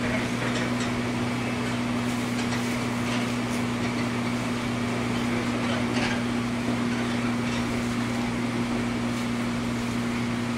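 Interior sound of a JR 103 series electric commuter train: a steady low electrical hum over an even mechanical rumble, with a scattering of faint clicks and knocks.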